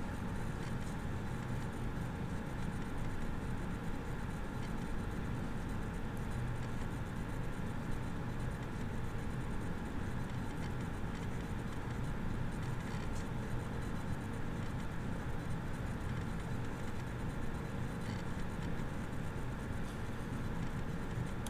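Steady low background hum and hiss with no distinct events: the room tone of an open microphone.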